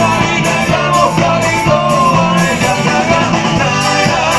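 Live band playing a song on a stage sound system: electric guitars, drums and keyboard, with a sung melody over them.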